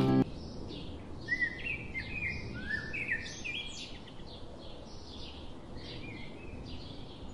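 Birds chirping: many short, quick chirps, some rising and some falling, over a steady low background hiss. A music track cuts off just after the start.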